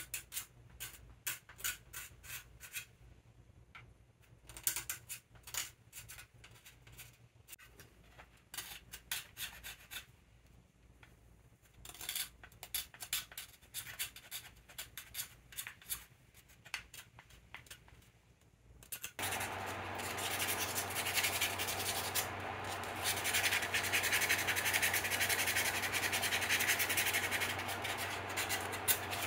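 A thin metal blade scraping the old finish off a wooden hand-plane knob in runs of short, quick strokes. About two-thirds of the way in it changes to a steadier, denser rubbing, with the knob being sanded by hand, over a low steady hum.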